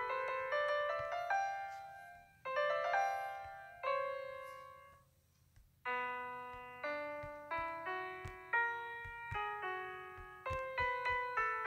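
Background solo piano music: single notes struck and left to ring and fade, with a short break of near silence about five seconds in.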